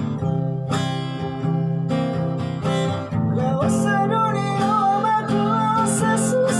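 Acoustic guitar strummed in chords. A man's voice starts singing a melody over it about three seconds in.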